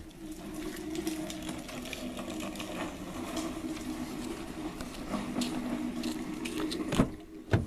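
A Ford Explorer Sport's 3.5-litre EcoBoost twin-turbo V6 idling steadily through a Borla aftermarket exhaust, heard at the tailpipe tips. Two sharp knocks come near the end.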